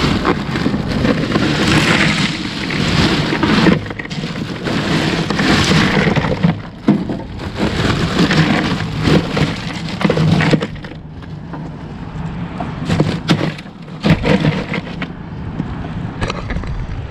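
Loose ice crunching and cracking as ice, bottles and cans are packed into a rotomolded cooler. It is dense for about the first ten seconds, then thins to scattered clicks and knocks.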